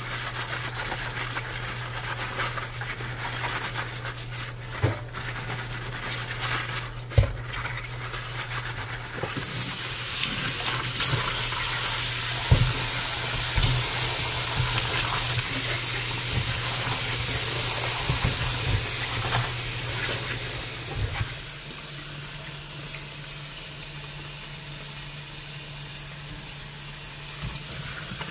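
Water running from a kitchen tap into a sink for about ten seconds, starting about nine seconds in and stopping a little after twenty, with scattered knocks and clatter of things handled in the sink.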